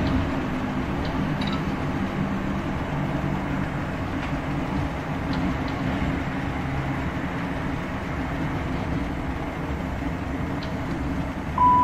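Class 465/9 Networker electric train heard from on board, running at steady speed: wheel-and-rail rolling noise with a steady low hum from its GEC Alsthom GTO-VVVF traction equipment. Near the end a two-note falling electronic chime starts, the passenger information system's lead-in to an announcement.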